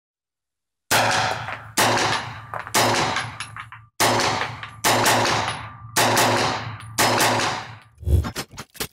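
Seven shots from a 9mm Just Right Carbine, a blowback semi-automatic rifle, fired about a second apart, each ringing out with a long tail. Near the end a quick run of small mechanical clicks and ticks.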